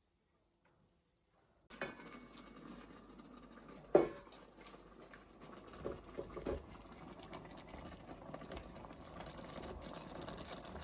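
Water running steadily, starting suddenly, with a sharp knock about two seconds after it starts and a few lighter knocks later.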